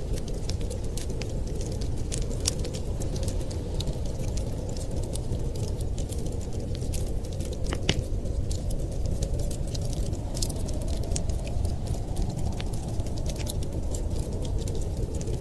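Fireplace wood fire crackling, many small pops and snaps over a steady low rumble, with one sharper pop about halfway through.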